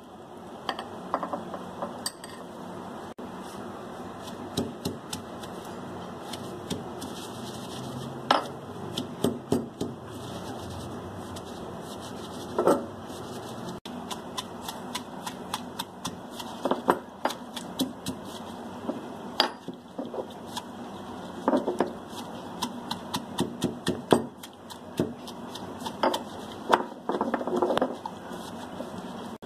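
Pestle pounding and grinding fresh mint leaves in a stone mortar: irregular knocks and clacks, sometimes several in quick succession, with the loudest strikes scattered through.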